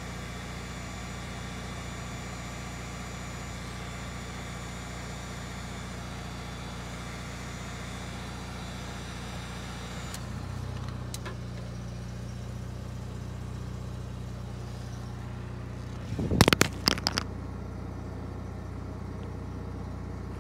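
Electric heat gun running, a steady fan whir with a thin high whine; its low hum shifts slightly about ten seconds in. A short burst of loud knocks about sixteen seconds in.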